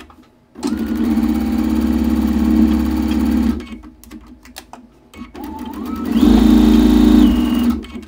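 Electric computerized sewing machine stitching a quilt seam in two runs: the motor speeds up with a rising whine, sews steadily for about three seconds and stops, then runs again for about two and a half seconds.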